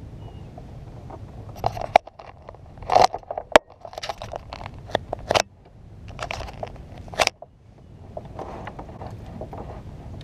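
Knocks, clicks and scrapes of an angler shifting about and handling gear on a Jackson Cuda 12 fishing kayak, bunched in the middle of the stretch over a steady low rumble of wind on the microphone.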